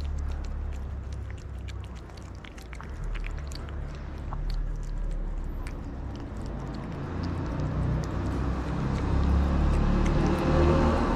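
A cat and kitten eating wet cat food from a plate close to the microphone: many small wet chewing and lapping clicks over a steady low rumble. A broader noise swells louder over the last few seconds.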